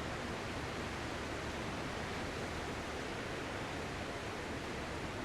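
Ocean surf giving a steady, even rushing wash with no distinct wave breaks or swells.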